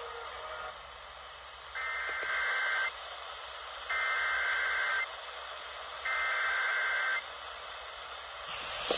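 Three bursts of Emergency Alert System SAME data, the two-tone digital code that frames an alert, received over NOAA Weather Radio. Each burst lasts about a second and is separated from the next by about a second, over steady radio hiss.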